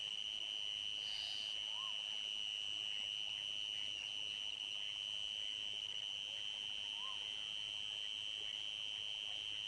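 Crickets trilling in a steady, unbroken high-pitched chorus, with two short faint calls over it about two and seven seconds in.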